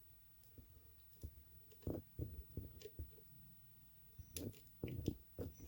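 Faint, irregular small clicks and scrapes of a lock pick probing and lifting the pin stacks inside a pin-tumbler challenge lock held under tension.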